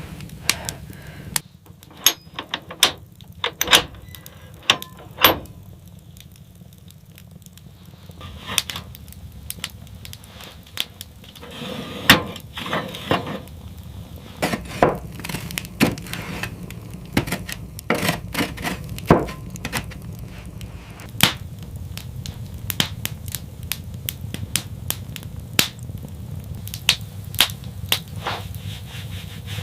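Irregular sharp knocks and clacks, like objects being handled or struck, some several a second and others spaced out, with a quieter gap about six seconds in and a low steady hum underneath later on.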